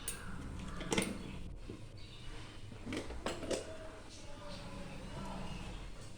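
Metal utensils knocking and clinking against a cooking pot: a few sharp clinks, one about a second in and two close together around three seconds in, over a low steady hum.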